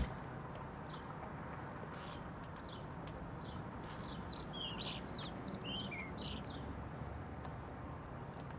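Small birds chirping: short quick calls, most of them in the middle, over a steady low outdoor background noise.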